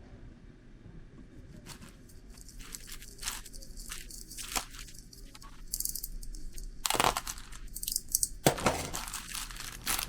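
Packaging being torn and crinkled by hand: irregular rustling crackles, with two louder tears about seven and eight and a half seconds in.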